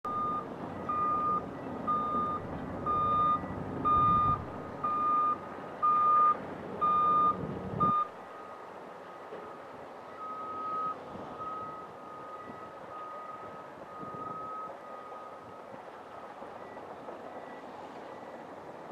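Backup alarm on heavy mining equipment beeping steadily about once a second over a diesel rumble, loud for the first eight seconds, then cutting off abruptly. A fainter, more distant backup alarm goes on for a few more seconds over the low, steady running of the machines.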